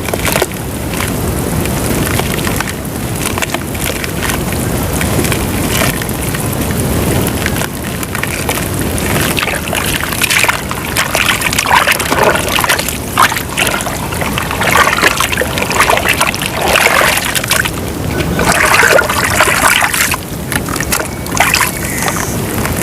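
Lumps of white dirt crumbling and dissolving in water: sloshing and bubbling, with crackling and clicking that gets busier in the second half.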